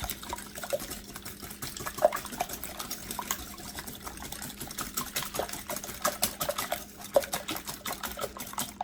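Six raw eggs being whisked by hand in a bowl: a rapid, rhythmic run of light clicks with a liquid slosh, stopping abruptly.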